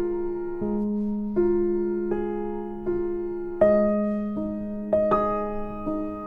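Background music: a slow, gentle piano melody over sustained low notes.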